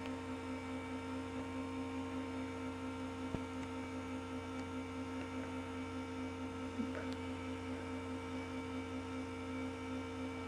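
Steady electrical hum with a few steady whining tones from a desktop PC power supply and the oscilloscope's built-in computer running as it boots, with a couple of faint clicks.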